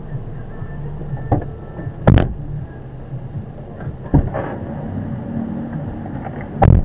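Inside a small car's cabin with its engine running steadily, a few thuds and knocks, the heaviest about two seconds in and near the end, from the doors as a passenger gets in.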